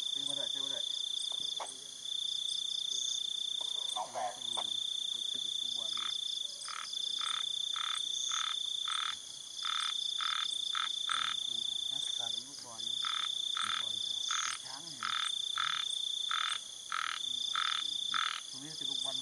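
Frogs croaking in regular series of short calls, about two a second, starting about six seconds in and broken by short pauses, over insects trilling steadily in long, high-pitched stretches.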